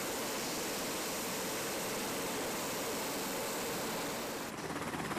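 Steady rushing outdoor noise with no distinct events, losing its highest hiss about four and a half seconds in.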